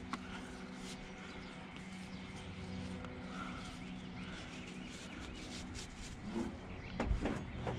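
Quiet handling of a tie-down strap being knotted around an ATV handlebar: faint rubbing and light clicks over a steady low hum, with a few louder knocks near the end.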